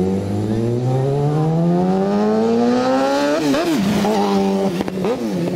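A motor vehicle's engine revving, its pitch rising steadily for about three seconds, then dipping and recovering twice before holding steady.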